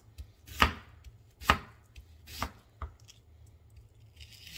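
Chef's knife slicing a peeled onion thinly on a wooden cutting board: four or five separate knocks of the blade reaching the board, about a second apart.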